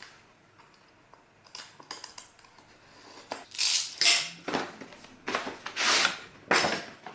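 Cardboard retail packaging being opened by hand: a string of irregular rustling and scraping bursts that starts about a second and a half in and grows louder and busier in the second half.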